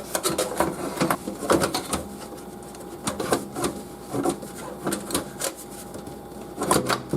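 Irregular clicks and knocks of a power supply being handled and slid into a metal computer case, busiest in the first two seconds and again near the end.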